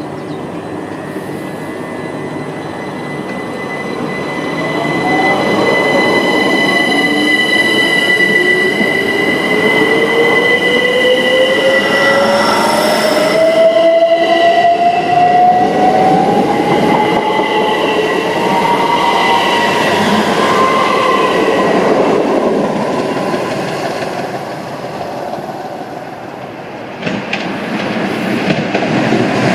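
A red electric multiple-unit passenger train runs past the platform: wheels rumble on the rails and a motor whine rises slowly in pitch over many seconds. The sound builds and then fades. Near the end a sudden louder sound starts as the next train approaches.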